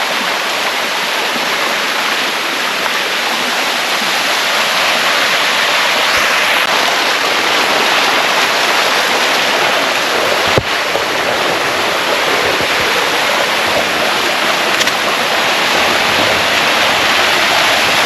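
Sticky Waterfall rushing steadily over the rocks close to the microphone, growing a little louder. One short knock about ten seconds in.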